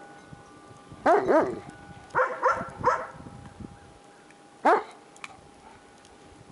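Large shepherd dog barking in short bouts: a quick pair of barks about a second in, three more a second later, then a single bark near the end.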